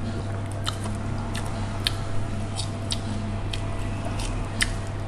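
Chewing noodles with the mouth close to the microphone, with scattered light clicks of chopsticks against small dishes, over a steady low hum.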